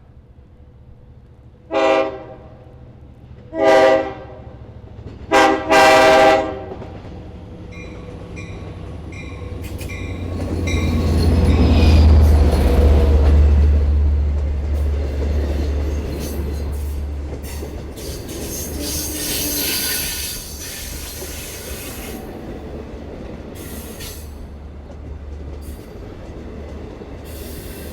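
Horn of an EMD DM30AC diesel locomotive sounding four blasts, two longer ones, a short one and a final long one: the grade-crossing signal. The train then rumbles in, loudest about twelve seconds in, with a high wheel squeal about two-thirds of the way through.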